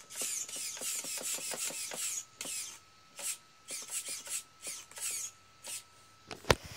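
Electric RC monster truck's motor and drivetrain whirring in short throttle bursts, each one dropping in pitch as it spins down, tires scrubbing on carpet. The bursts come about three a second at first and then further apart, over a faint steady whine, and a sharp click comes near the end.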